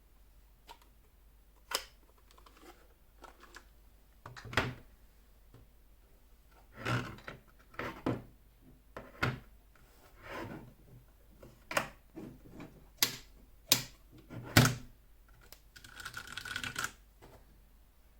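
Keys on a Ducky One 2 SF mechanical keyboard with brown switches being pressed one at a time: irregular clacks, about one a second, with a brief scratchy rustle near the end.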